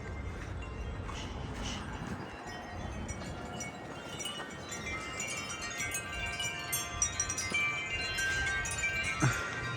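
Wind chimes ringing in gusty wind: a few scattered notes at first, then, from about four seconds in, many overlapping tones as a gust sets them swinging. Wind rumbles on the microphone underneath.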